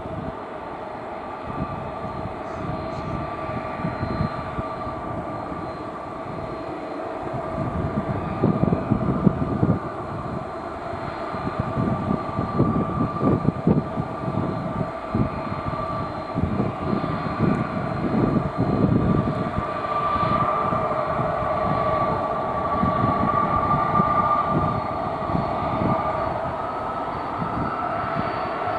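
Airbus A330-300's Pratt & Whitney turbofan engines running, a steady two-note whine over a rough, gusty rumble. The sound grows gradually louder, and the higher whine rises slightly near the end.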